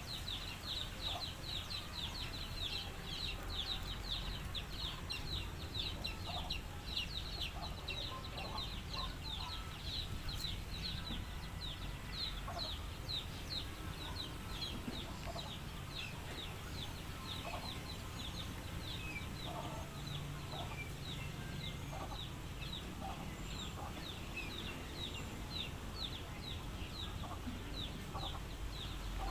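Chickens clucking amid rapid, high chirping that is dense for about the first twelve seconds and then thins out.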